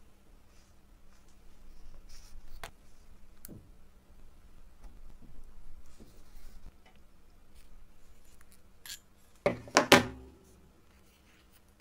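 Hands handling a leather strap with a brass buckle and a small brass post and cap: soft rubbing and light clicks, then three sharp knocks in quick succession about nine and a half seconds in.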